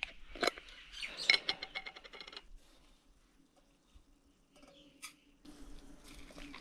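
A metal utensil clinking and scraping against an instant-coffee jar and a cup in quick rattling strokes. About five and a half seconds in, hot water is poured from a camping pot into the cup.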